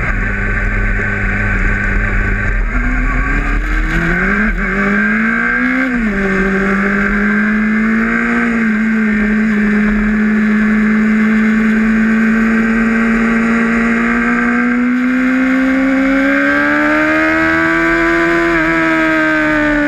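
Honda sport bike engine from the rider's onboard camera, running at steady low revs over a low rumble while rolling across the grass, then revving up about four seconds in. The revs fall back and hold steady, climb again near the end, and drop sharply once.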